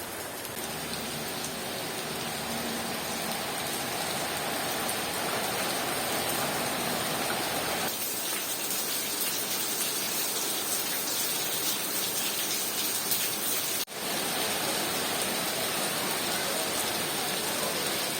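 Heavy rain falling, a steady dense hiss that turns brighter about eight seconds in, with a brief dropout about fourteen seconds in.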